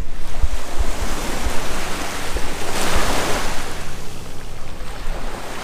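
Small waves washing onto a sandy beach, one swelling up about three seconds in, with wind buffeting the microphone.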